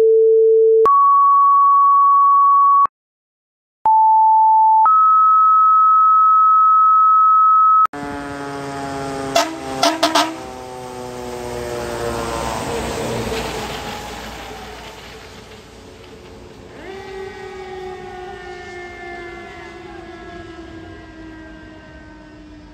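Fire dispatch tone-out: two pairs of steady paging tones, each a short lower tone followed by a longer higher one. About eight seconds in, York Fire Department's ladder truck passes with its siren sounding and a few short horn blasts. The siren's pitch slowly falls, jumps up again about two-thirds of the way through, then falls off again.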